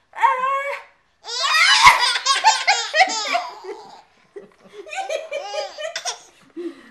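Baby belly-laughing at sneezes, in three bursts; the longest, about a second in, is a quick run of laughs at about five a second.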